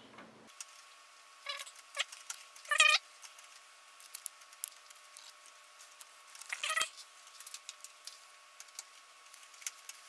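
Phillips screwdriver loosening the small screws of a motherboard's M.2 heatsink: faint scattered clicks and a few short squeaks, the loudest about three seconds in and again near seven seconds.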